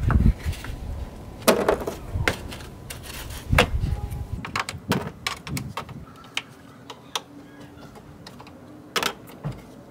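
Plastic push-in retaining clips on a Jeep Wrangler JL's grille being pried out with a screwdriver: a string of irregular sharp clicks and snaps, with a low rumble during the first few seconds.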